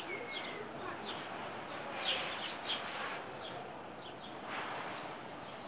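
Birds chirping: short, high chirps, often dropping in pitch, in a quick cluster about two seconds in and more scattered through the rest, over a steady outdoor background hiss.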